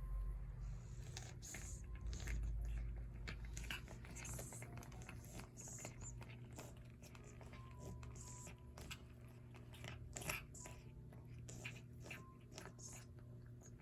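A cat chewing and crunching food: a run of small irregular crunches and clicks, over a low steady hum.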